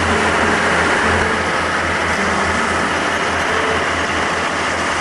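A fishing boat's engine running steadily underway, a low even throbbing drone under the rushing hiss of water and wind.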